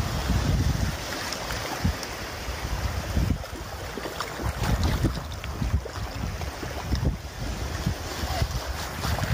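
Wind buffeting the microphone in irregular low rumbling gusts, over shallow seawater sloshing and splashing around people wading and hauling a fishing net.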